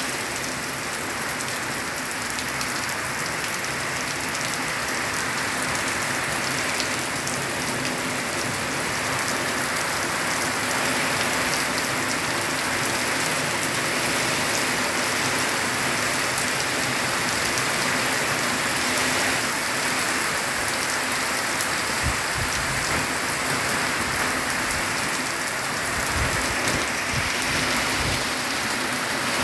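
Heavy rain falling steadily, streaming off a roof edge and splashing onto wet ground. Low rumbling buffets come in over the last several seconds.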